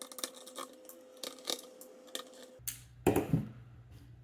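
Small metal clicks and taps of a screwdriver backing out the small screws of a metal shield inside a mini PC, with a few sharper clinks and a duller knock about three seconds in.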